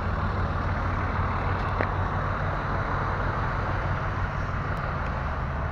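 Steady low drone of an idling engine, even throughout, under a broad steady hiss.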